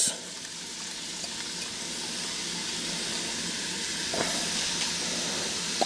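Chopped onion, celery and carrot sizzling in hot melted butter in a stainless steel soup pot as they begin to sauté: a steady hiss that slowly grows louder.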